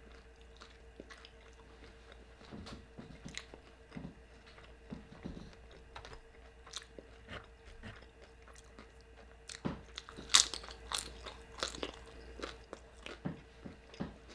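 Close-miked crunching and chewing of tortilla chips from al pastor nachos, in scattered crisp bites that grow louder and closer together about two-thirds of the way through.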